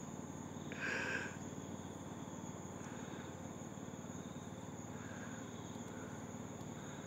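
Faint, steady high-pitched insect buzzing from crickets or cicadas at dusk, over a low, even mechanical hum. A short higher-pitched sound comes about a second in.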